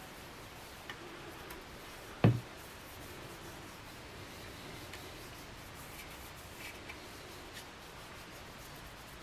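Bare hands rubbing a finishing oil into a wooden rifle stock: a faint, steady rubbing with a few light ticks. A single sharp thump about two seconds in.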